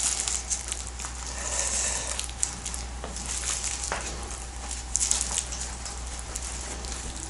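Soft rustling and crinkling of an elastic bandage being wound around the neck over a strip of aluminium foil, with scattered small clicks.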